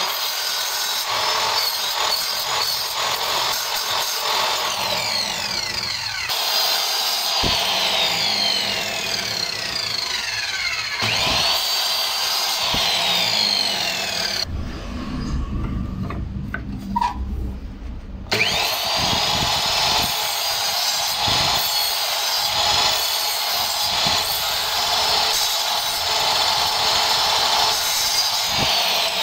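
Sliding compound miter saw cutting a series of kerfs into a pine board to clear a notch. The motor whine spins up and winds down with each cut. It drops away for a few seconds midway, then starts up again and runs steadily.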